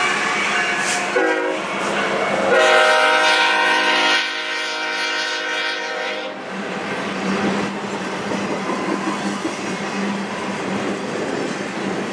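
Freight locomotive horn sounding a short blast and then a long one of about three and a half seconds, several tones at once, over the steady rumble and clatter of an intermodal freight train's cars rolling past on the rails.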